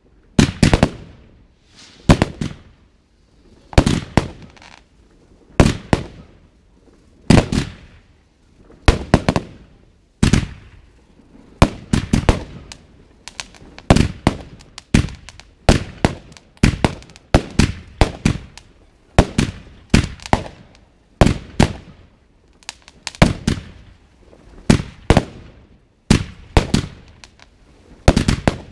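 Consumer fireworks battery firing aerial shots one after another: sharp bangs about every one and a half to two seconds, coming faster, about one a second, from roughly halfway through.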